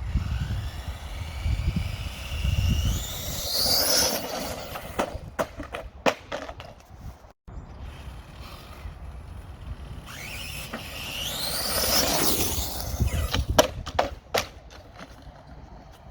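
Modified FTX Outback 2 RC crawler's brushless motor and gears whining, rising steeply in pitch as it accelerates hard, twice. Each run is followed by a few sharp knocks, over a low rumble of tyres on the ground.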